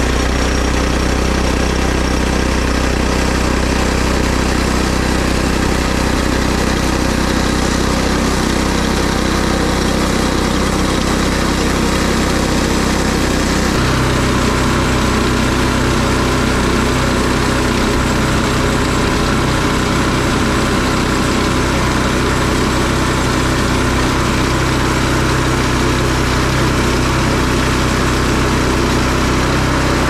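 Woodland Mills HM122 portable bandsaw mill running steadily, its gas engine under load as the band blade saws through a poplar log. The engine note shifts slightly about halfway through.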